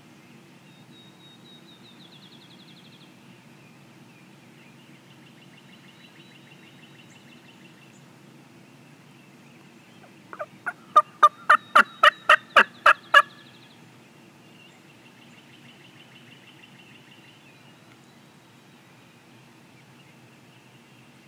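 Wild turkey gobbling: one loud rattling gobble of about a dozen quick notes, about ten seconds in. Songbirds trill faintly before and after it.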